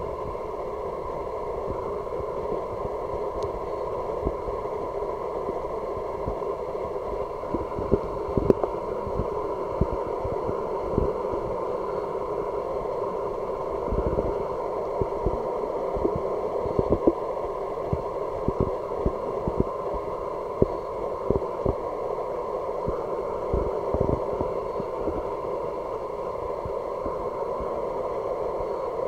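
Muffled underwater ambience picked up through a camera's waterproof housing: a steady dull hiss with scattered soft low thumps.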